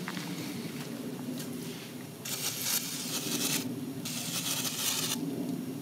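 Aerosol carb cleaner spraying from a can through its straw in two hissing bursts, each a little over a second long, the first about two seconds in and the second about four seconds in.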